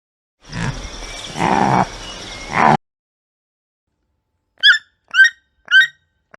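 Two animal sounds: a call lasting about two seconds with three louder swells, then, after a pause, three short high calls about half a second apart.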